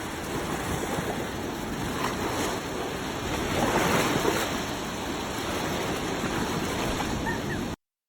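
Sea surf washing onto a beach: a steady rush of waves that swells to its loudest about four seconds in, then cuts off suddenly near the end.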